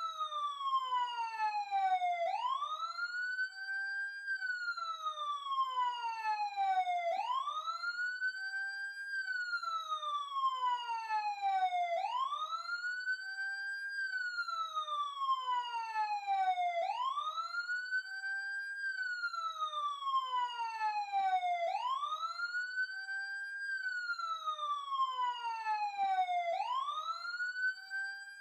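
Electronic emergency siren wailing in a repeating cycle: the pitch sweeps up over about a second and a half, holds briefly, then slides slowly down over about three seconds before rising again, roughly once every five seconds.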